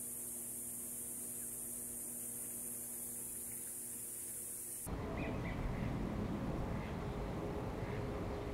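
Steady electrical hum, several constant tones under a high hiss, with nothing else heard. About five seconds in it cuts off suddenly and gives way to a louder, even background noise.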